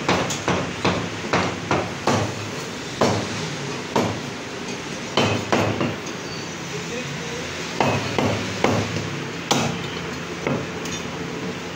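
Meat cleaver chopping through a goat's head and bone on a wooden log chopping block: a string of sharp, irregular chops, some in quick pairs and short runs, with a brief pause past the middle.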